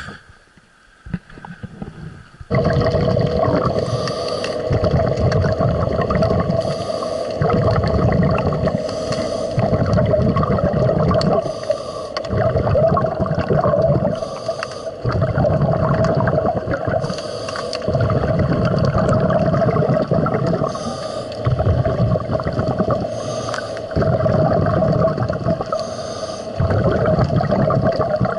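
A scuba diver breathing underwater through a regulator, a breath every two to three seconds: a short hiss on each inhale and bubbles rumbling out on each exhale, over a steady hum. It starts about two and a half seconds in.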